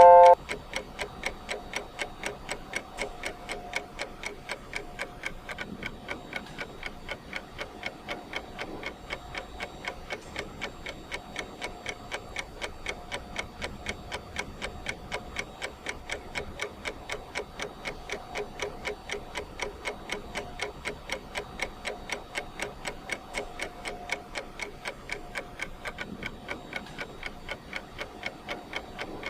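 Ticking clock of a countdown timer, a steady, even tick going on without a break, several ticks a second. A loud beep cuts off in the first instant.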